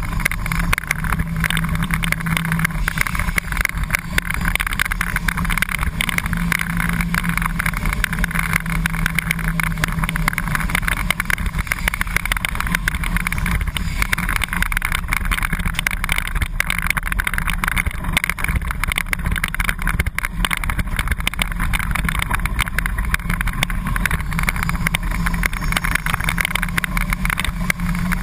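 Flat-nose school bus's engine running at a steady speed, heard from inside the cab: a loud, constant din with a low hum that swells and fades now and then.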